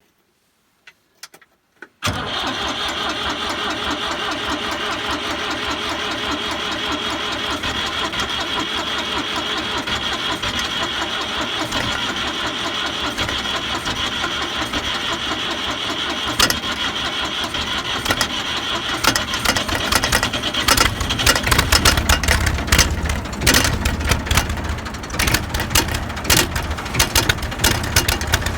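Massey Ferguson 35 tractor cold start. After a couple of faint clicks, the starter cranks the engine steadily for about sixteen seconds. Near the end the engine begins to fire unevenly, then catches and runs rough and lumpy.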